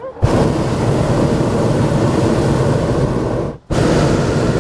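Hot air balloon's propane burner firing: a loud, even blast that starts abruptly, runs about three and a half seconds, cuts off for a moment and then fires again.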